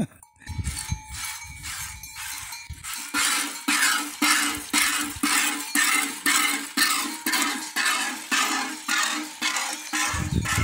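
A cow being milked by hand into a galvanized metal bucket already partly full of milk: the streams squirt in a steady rhythm of about two to three squirts a second. In the first seconds there are footsteps on dirt and the bucket clinks as it is carried and set down.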